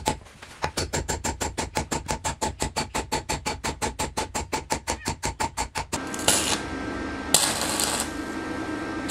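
Rapid, even hammer taps on short rebar pieces standing in a wooden block, about six a second. About six seconds in they give way to the steady crackle and hiss of a stick arc welder joining the rebar, flaring louder twice.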